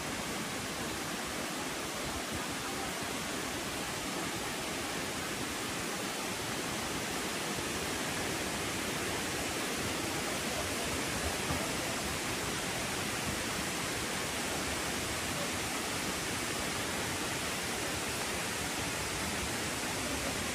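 Steady rush of flowing water, a continuous even hiss with no breaks or changes.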